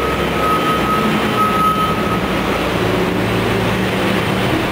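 Heavy vehicle engines running steadily, with a backup alarm beeping repeatedly until about two seconds in.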